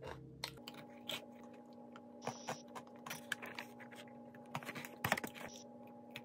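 Close-up crunching and chewing of small pieces of crisp sablé cookie: a scatter of short, crisp clicks over a faint steady hum.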